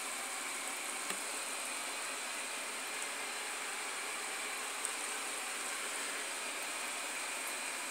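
Steady background hiss with no distinct source, broken only by a couple of faint clicks.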